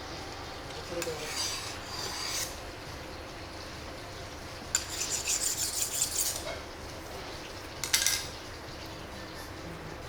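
Intermittent scraping and rubbing in three spells, the last one short, like a utensil or tool worked against a hard surface.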